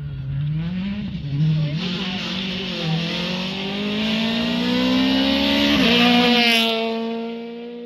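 Peugeot 208 rally car accelerating hard towards and past the listener on a gravel road. The engine note climbs through several gear changes in the first few seconds, keeps rising, then drops suddenly with a rush of noise as the car goes by about six seconds in.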